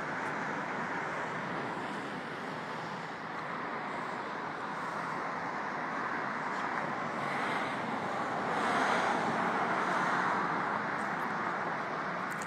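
Steady road traffic noise, swelling louder about eight seconds in as a vehicle passes.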